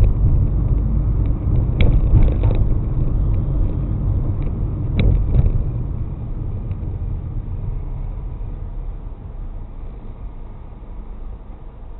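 Car on the move, heard from inside through a dashcam: a steady low road and engine rumble with a few sharp knocks about two and five seconds in, getting gradually quieter over the second half.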